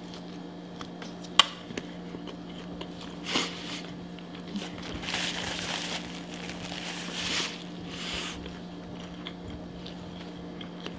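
Close-up chewing and mouth sounds of someone eating loaded cheese fries, with a few small clicks. A napkin rustles at the mouth for a couple of seconds past the middle, over a steady low hum.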